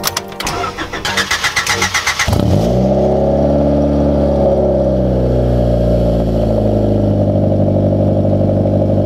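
Honda Civic EG hatchback's four-cylinder engine cranking on the starter and catching about two seconds in, with a brief flare of revs. It then settles into a steady idle through its aftermarket exhaust.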